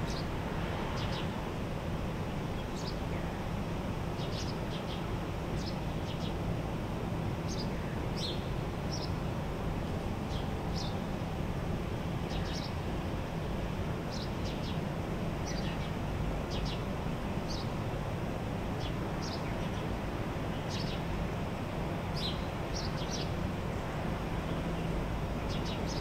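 Steady low hum and hiss of a hotel ventilation system, with birds chirping over it: short high chirps, one every second or so.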